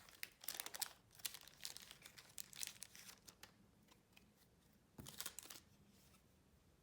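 Foil wrapper of a football trading-card pack crinkling softly as it is handled, a run of short crackles over the first few seconds and a brief burst about five seconds in.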